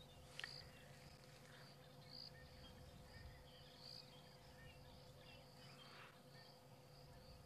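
Near silence: faint, high insect chirring in the bush, pulsing slightly, over a faint steady low hum.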